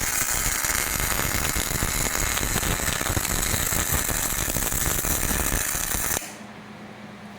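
Hobart 220-volt electric arc welder laying a tack weld on 1/2-inch steel plate: a steady, loud crackle of the arc that cuts off suddenly about six seconds in.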